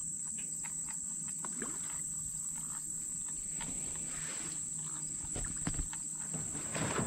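Steady high-pitched insect drone, unbroken, with scattered small clicks and knocks over it and a brief louder rustle near the end.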